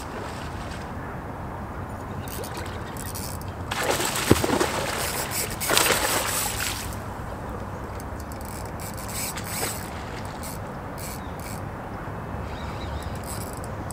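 A hooked coho salmon thrashing and splashing at the surface next to the bank, starting about four seconds in and lasting about three seconds.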